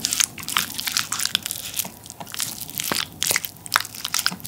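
A person chewing food close to the microphone, with dense, sharp crunchy crackles.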